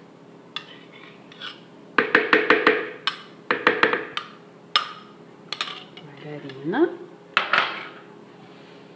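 Kitchenware clinking and knocking as margarine is emptied from a glass cup into a ceramic stand-mixer bowl: a quick run of clinks about two seconds in, another soon after, then scattered single knocks.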